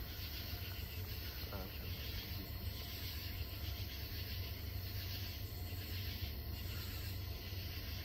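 Low, steady rumble of an approaching Norfolk Southern freight train's diesel locomotives.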